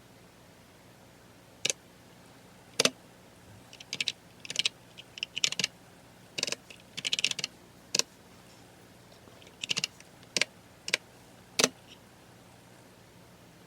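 Computer keyboard typing in short, irregular bursts of keystrokes, with a few single, louder key strikes between them.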